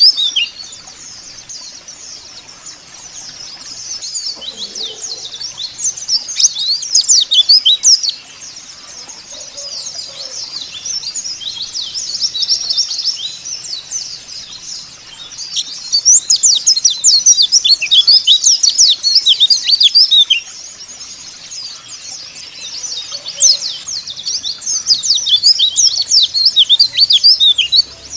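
White-eyes (pleci) chirping and twittering in fast, high-pitched streams of short falling notes that overlap. The chirping comes in loud stretches with quieter spells between them.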